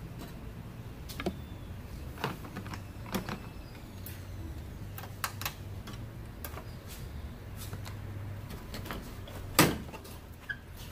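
Scattered clicks and knocks of hands working plastic clips, connectors and parts on a car's front end, with one sharper knock near the end.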